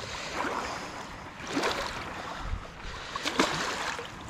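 Water sloshing and splashing as hands rummage in a keepnet sitting in shallow river water, lifting fish out, with a couple of louder splashes about a third of the way in and near the end.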